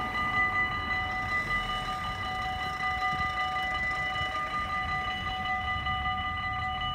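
Dutch AHOB level-crossing warning bells ringing steadily, several bells at once at a few fixed pitches, while the barriers come down: the crossing is warning of an approaching train.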